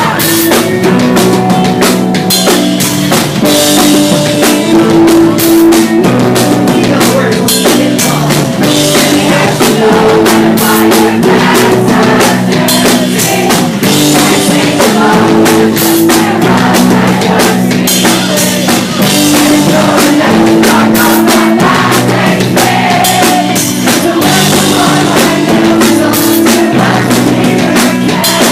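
Pop-punk band playing live: loud, steady rock music driven by a drum kit.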